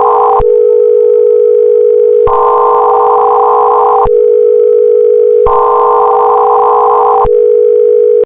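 Electronic emergency-alert warning tone: a loud, steady low tone with a higher chord of several tones layered over it, switching on and off in pulses of nearly two seconds about every three seconds. It stops abruptly near the end.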